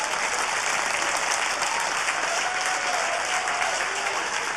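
Audience applauding: dense, steady clapping from a full theatre crowd.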